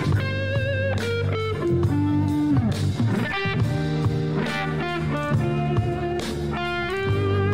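Music: an electric guitar playing held, wavering notes with pitch bends over a band backing, one note sliding down about two and a half seconds in.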